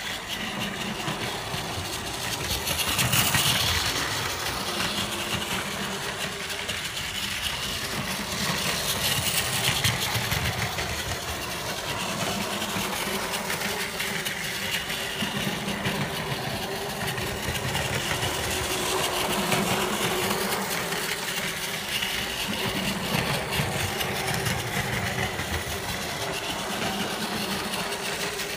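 Takara Tomy Plarail battery-powered toy train running on its track, its small electric gear motor whirring steadily.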